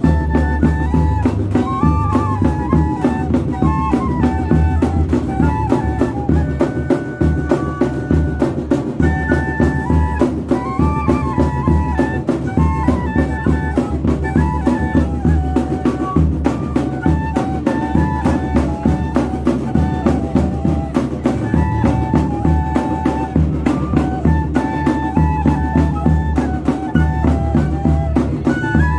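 Northeastern Brazilian banda de pífanos playing: cane fifes carry a melody over a steady, loud beat of zabumba bass drum and snare.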